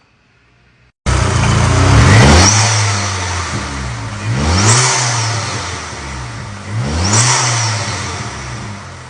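Audi TT mk2 engine with a Neuspeed cold air intake, revved three times, each rev rising in pitch and falling back toward idle. The engine sound starts abruptly about a second in.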